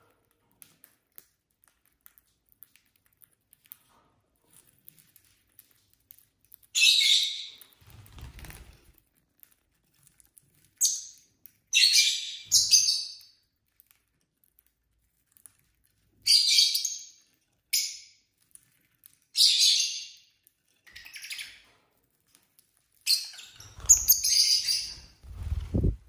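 Lovebirds chirping in short, sharp high-pitched bursts, sparse at first and then coming close together toward the end. A few low thumps come with the calls, loudest near the end.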